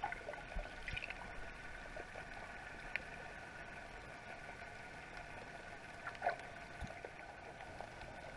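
Underwater sound heard from beneath the sea surface: a faint steady hum from a distant boat motor carried through the water, with a few small clicks and bubble pops.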